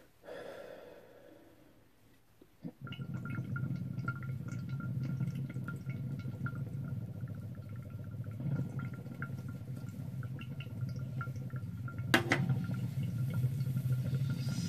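Water bubbling steadily through a glass beaker bong's diffused downstem as a hit is drawn, starting about three seconds in, with a thin steady whistle above the bubbling. A sharp knock near the end.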